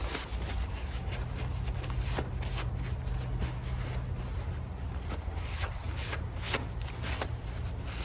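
A paper towel rubbing and scraping over the plastic housing of a Stihl MS 261 C-M chainsaw as it is wiped down, in quick irregular strokes with small knocks of gloved hands on the saw, over a low steady hum.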